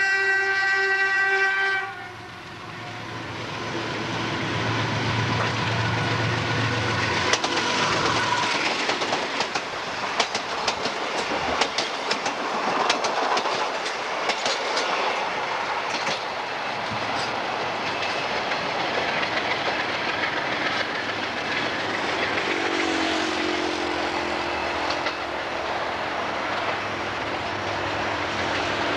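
Diesel locomotive's air horn sounding a chord, cutting off about two seconds in. The locomotive's engine rumbles past, then the passenger cars' wheels clatter rapidly over the rail joints for several seconds, settling into a steady rolling noise as the train moves away, with a lower horn-like tone sounding again near the end.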